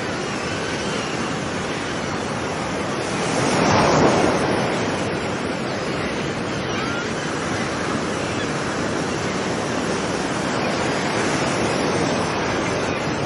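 Ocean surf washing on a beach: a steady wash of water with one wave breaking louder about four seconds in.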